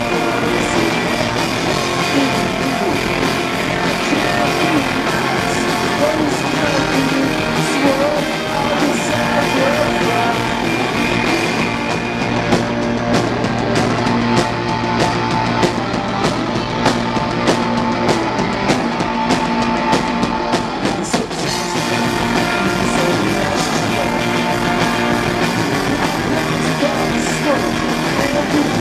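Rock band playing live with electric guitars, drums and sung vocals. About halfway through, the top end drops away for several seconds and steady drum hits stand out, before the full band sound returns.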